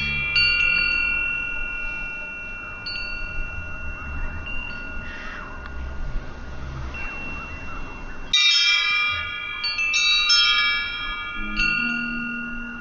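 Metal tube wind chimes ringing as they sway in the breeze, with long, overlapping ringing tones. Strikes come irregularly, and a flurry of several tubes struck at once comes about two-thirds of the way through.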